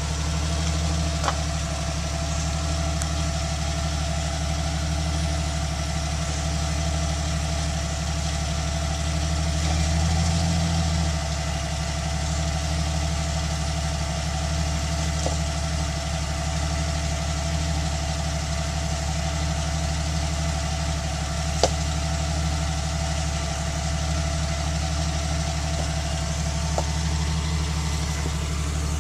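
A rock-crawling Jeep Cherokee XJ's engine runs steadily at low revs as it creeps over a boulder. The revs rise briefly about ten seconds in, and there is a single sharp knock a little past twenty seconds.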